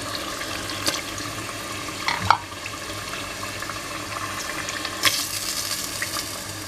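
Green cilantro sauce simmering in a stainless steel pot with a steady hiss, while hake steaks are set into it by hand, giving a few soft knocks and plops, the loudest a little over two seconds in and another about five seconds in.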